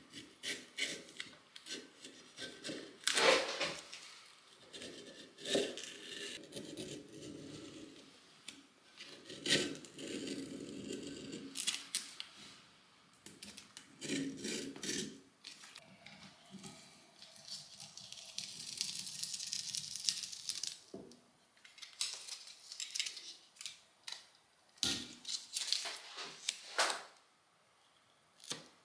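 Masking tape being trimmed with a snap-off utility knife along the edge of a metal vise part, then pulled and pressed on by hand: irregular sharp cuts, crinkles and scrapes of tape and blade, with a longer steady rasp about two thirds through.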